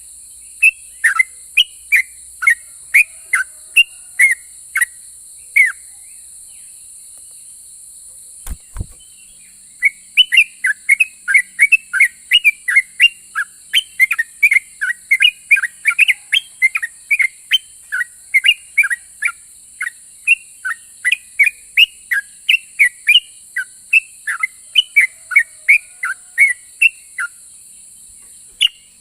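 Yellow-vented bulbul (trucukan) singing: a long series of short, sharp falling whistled notes. They come a couple a second at first, pause for a few seconds, then run on in a fast, dense roll. A single brief low thud falls in the pause, and a steady high hiss lies underneath.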